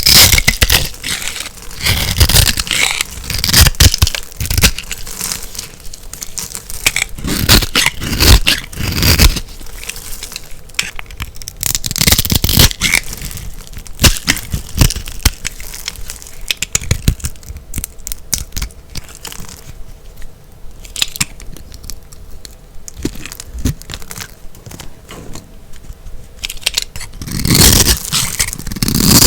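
A knife cutting through dry, crunchy soap: irregular crackling, crunching and scraping strokes in clusters, with a quieter stretch in the second half and a loud crunching spell near the end.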